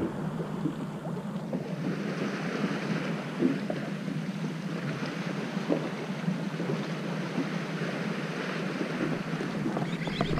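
Boat engine running with a steady low hum, under wind and sea noise, with a few light knocks.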